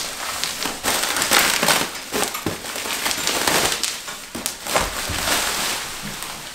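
Plastic bubble wrap crinkling and crackling irregularly as it is pulled off a metal chair frame, with a dull knock about five seconds in.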